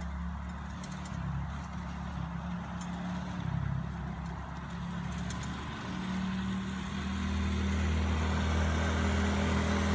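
Small youth ATV's engine running at a steady pitch as it is ridden around, getting louder from about six seconds in as the quad comes closer.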